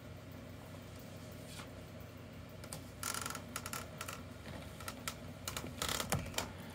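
Light scratching, rustling and scattered clicks against cardboard, busiest from about three seconds in and loudest near the middle and again near the end, over a steady low hum.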